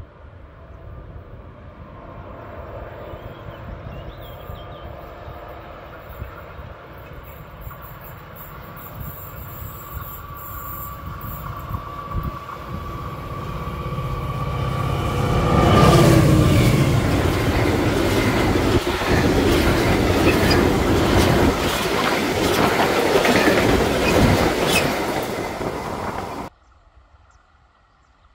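Medway freight train approaching and passing close: the locomotive's rumble builds steadily and peaks as it goes by about sixteen seconds in. A long string of wagons follows, rattling with a clickety-clack over the rails, until the sound stops abruptly near the end.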